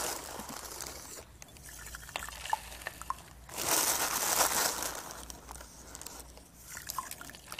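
Coarse rock salt poured from a plastic packet into a jar of water, with the packet crinkling and a few grains ticking as they drop; a louder stretch of rustling comes about halfway through.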